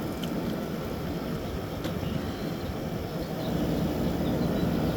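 Frigidaire 8,000 BTU window air conditioner running in cooling mode, its fan and compressor making a steady whooshing hum. There is one faint click about two seconds in.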